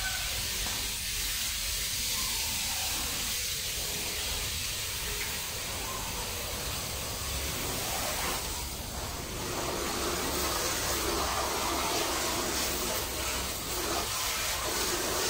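Steady hiss of water spraying from a garden hose. About ten seconds in, a steady mechanical hum with a higher whine joins it.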